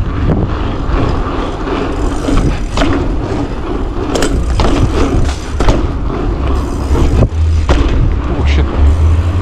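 Wind rumbling on an action camera's microphone as a mountain bike rides along, with tyre noise on the pavement. Irregular sharp knocks and rattles come from the bike over bumps, about eight through the stretch.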